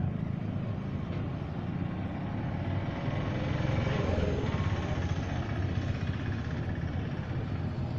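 Steady low mechanical rumble with an even hiss above it, like a running engine.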